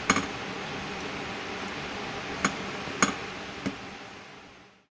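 A few light clicks and taps of fingers against a steel tray as cashew halves are pressed into coconut burfi, over a steady hiss; four taps, the middle two about half a second apart, then the sound fades out.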